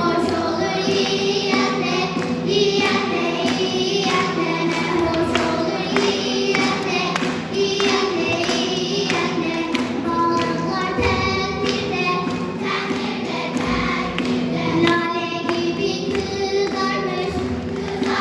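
Children's choir singing a song together over an instrumental accompaniment.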